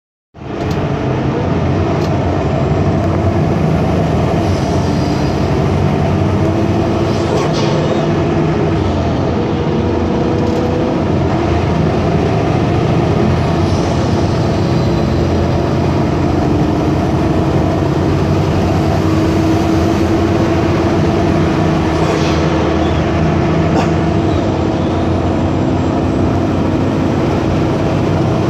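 MAN Lion's City CNG bus under way, its MAN E2876 gas engine running with a steady whine from the turbo-driven cooling fan. Brief hisses come now and then.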